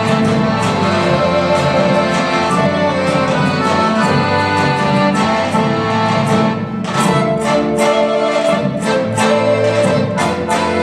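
Instrumental Albanian folk dance music: a held, ornamented melody over a steady accompaniment, joined about two-thirds of the way in by sharp regular beats about two a second.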